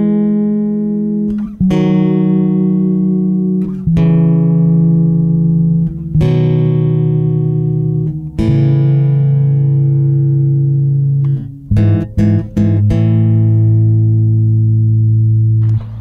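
Background music of long, held chords that change about every two seconds, with a few short chopped chords about twelve seconds in before another long chord.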